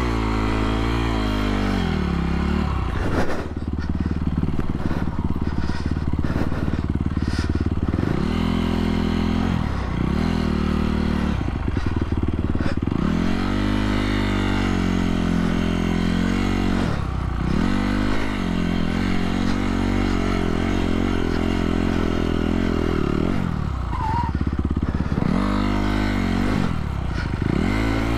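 Honda CRF250R's single-cylinder four-stroke engine under way, revving up and dropping off again and again as the throttle is worked and gears changed, with steady stretches at high revs between. A few sharp knocks sound between about three and eight seconds in.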